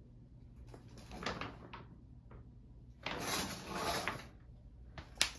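Shower curtain being drawn open, its rings scraping along the rod in two pulls, the second longer and louder, followed by a sharp click near the end.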